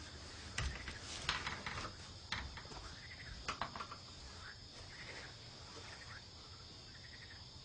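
Crickets chirring steadily in a night-time ambience. A few soft footsteps and rustles come in the first few seconds.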